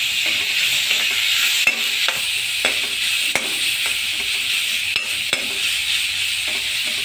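Chopped onions, tomatoes and spices sizzling steadily in oil in a kadhai over a low flame, while a spatula stirs and scrapes the pan in repeated strokes about once or twice a second: the masala being roasted (bhuna).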